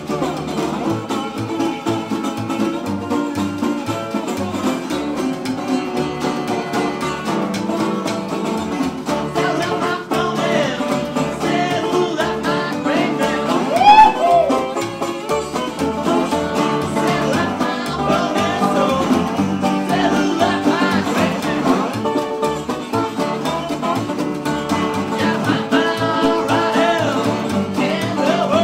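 Acoustic blues band playing live and unplugged, with plucked strings keeping a steady beat. There is a brief louder swell about halfway through.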